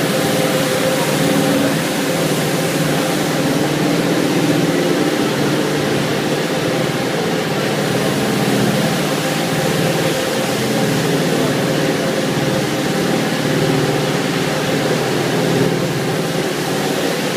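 Cleanvac BRS 320 automatic carpet washing machine running as it brushes a foamy carpet: a steady mechanical drone from its brush motors, with a constant hum and hiss.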